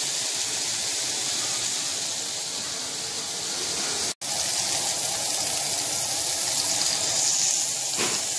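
Burger patties sizzling in hot oil in a cast-iron skillet: a steady hiss that cuts out for an instant a little after four seconds in.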